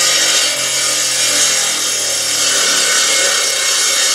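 Homemade solar-powered circular-saw lumber mill cutting through a log: a loud, steady hiss of the blade in the wood over the low hum of the saw's motor.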